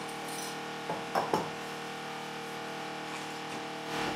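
A few short metallic clinks about a second in as steel forging die parts and the punch are set over a hot tappet blank, over a steady multi-tone hum from running shop equipment.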